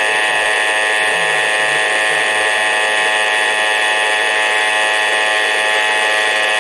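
Emergency Alert System attention signal: a steady, buzzing alert tone held without a break.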